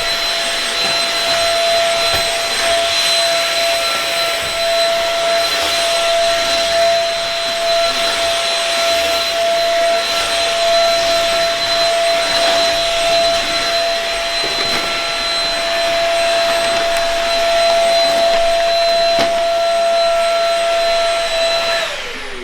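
Vacuum cleaner running steadily with a high motor whine over a hiss of air. It is switched off near the end, the whine falling in pitch as the motor spins down.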